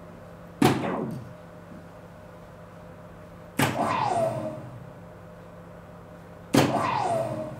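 Three soft-tip darts hitting an electronic dartboard, about three seconds apart. Each hit is a sharp knock followed by a short tone from the machine that falls in pitch and fades.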